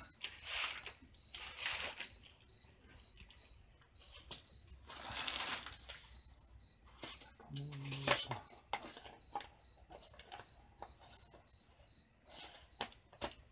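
A cricket chirping steadily, about three short high chirps a second. Over it come rustles and knocks from hands pressing a tight lid down onto a brim-full plastic barrel.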